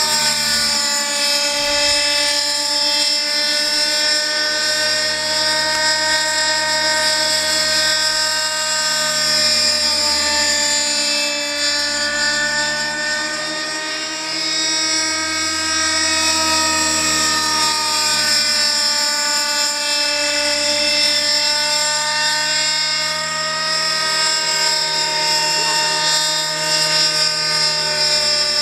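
Robbe Moskito RC helicopter's Novarossi 50H 8.4 cc two-stroke glow engine running at high speed with its rotors turning. It gives a steady high-pitched whine whose pitch and level rise and fall a little, with a slight dip about halfway through.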